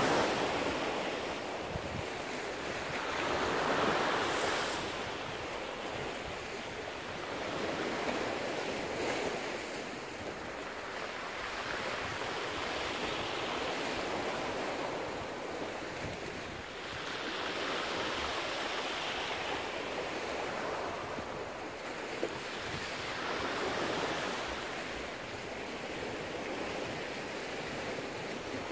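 Rough sea: waves breaking and washing on rocks, the surf swelling and fading every four to five seconds.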